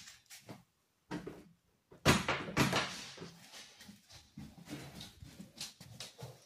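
A door being handled: a sudden clack of the handle and latch about two seconds in, with rattling that dies away over a second, then soft shuffling and small knocks.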